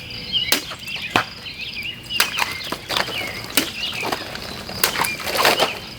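A serrated Cold Steel Talwar folding knife slashing through bottles: about nine sharp cutting strikes and knocks at irregular intervals. Small birds chirp in the background throughout.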